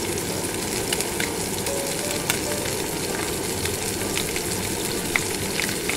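Minced horse mackerel namerou frying in oil in a pan as sanga-yaki: a steady sizzle with scattered sharp pops.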